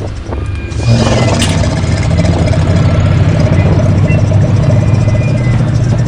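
A loud, low mechanical-sounding drone with a grainy rumbling texture swells in suddenly about a second in and holds steady, with a brief sharp crackle shortly after. It is part of a layered, home-made atmospheric soundscape rather than a plain field recording.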